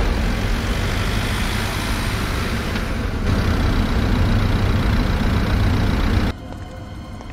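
Armoured military truck engine running steadily with a deep rumble and road noise. It drops off abruptly about six seconds in, leaving a much quieter background.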